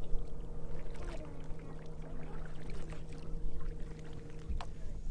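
Kayak paddles dipping and splashing in the water as the kayak moves off, with a low wind rumble on the microphone and a steady low hum underneath. A sharper splash or knock comes about four and a half seconds in.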